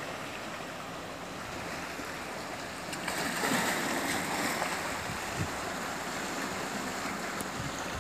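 Small sea waves washing against shore rocks, with a louder rush of surf about three seconds in.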